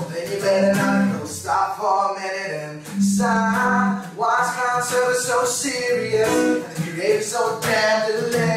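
A man singing a song while accompanying himself on an acoustic guitar.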